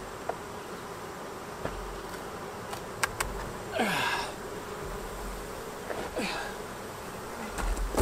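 Honeybees buzzing steadily around an open hive, with louder swoops of buzzing that fall in pitch about four and six seconds in. A couple of sharp clicks come about three seconds in.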